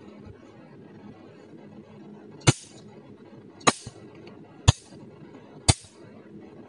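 Picosecond laser handpiece firing single pulses onto black laser test paper: five sharp snaps about a second apart, starting about two and a half seconds in, over a low steady hum.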